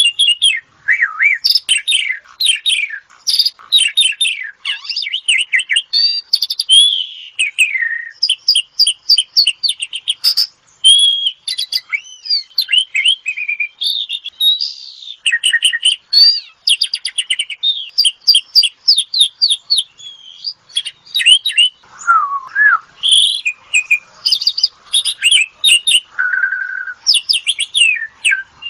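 Asian pied starling (jalak suren) in full song: a loud, unbroken stream of rapid chattering notes, short whistles and quick trills, varied phrase to phrase with hardly a pause.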